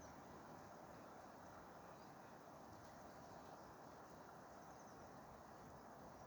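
Near silence: faint, steady outdoor background hiss, with no thunder.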